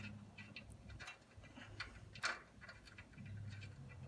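Faint, scattered clicks and light metallic ticks of a small screw and carburetor being handled while the carburetor is fastened to a small Briggs & Stratton engine's intake manifold, the loudest click a little past halfway. A low hum sits underneath, fading out about a second in and coming back near the end.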